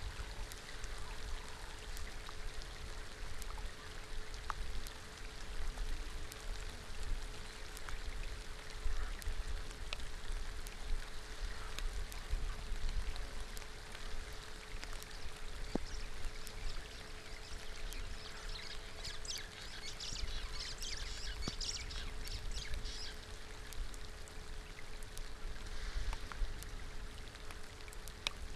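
Rain falling on a shallow pool: a steady wash of patter with separate drop hits ticking through it, over a faint steady hum. About two-thirds of the way through, a brief burst of high-pitched chirping rises above the rain.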